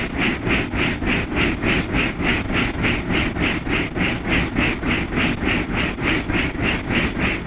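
Helicopter in flight heard from inside the cockpit: a steady engine and rotor rumble under a regular rotor beat of about four pulses a second.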